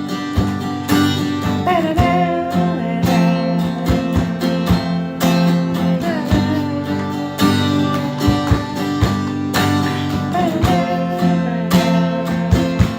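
Acoustic guitar strummed steadily in an instrumental break between verses of a slow pop song, with a held, wavering melody line over it.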